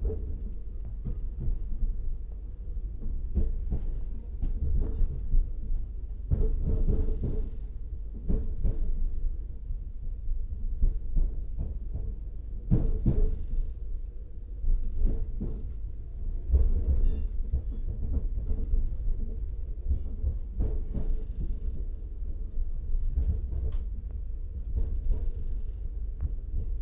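Regional train running, heard from inside the carriage: a steady low rumble with frequent knocks and rattles, and a few brief louder rushes of noise about 7, 13, 21 and 25 seconds in.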